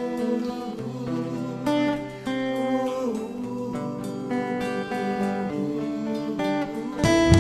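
Instrumental intro of a gospel song, led by plucked and strummed guitar over a bass line. The music gets louder and fuller about seven seconds in.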